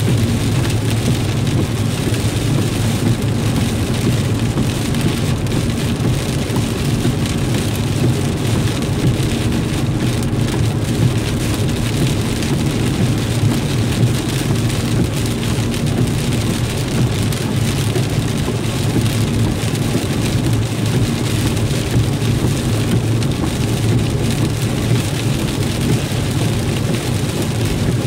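Steady noise inside a car driving in the rain: rain on the car and tyres on the wet road over a low, constant road drone.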